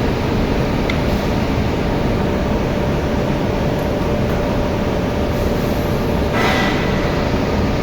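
Steady, loud machinery noise with a faint steady hum, and a brief brighter hiss about six and a half seconds in.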